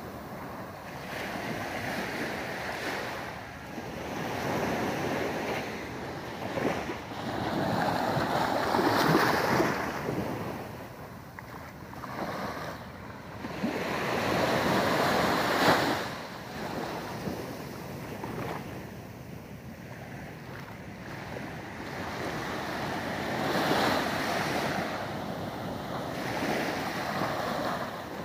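Small waves breaking and washing up a sandy beach, the surf swelling and ebbing every few seconds, with louder surges about a third and halfway through.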